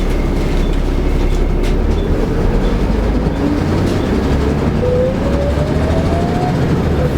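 Volvo B7TL double-decker bus under way: steady low engine and road rumble with rattles, and a whine that rises in pitch as the bus picks up speed, dropping back near the end. A couple of sharp clicks sound in the first two seconds.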